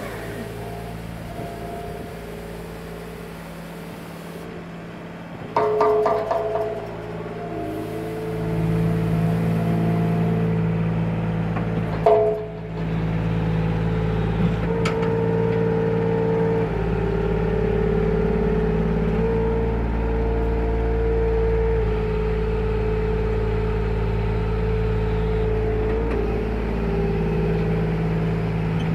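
Kärcher KMR 1700 D sweeper's Kubota D722 three-cylinder diesel engine running steadily, its note louder from about eight seconds in. A few knocks come near six and twelve seconds in, and a steady whine rides over the engine in the second half while the hopper is lifted.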